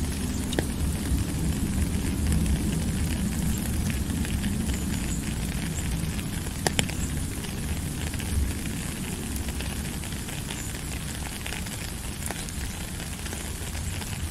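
Steady rain falling: a dense even hiss with a low rumble underneath and scattered crackling drop hits, one sharper tap about seven seconds in.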